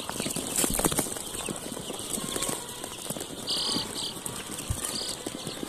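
A flock of young chicks peeping, short high chirps from many birds, over a dense patter of small clicks and taps.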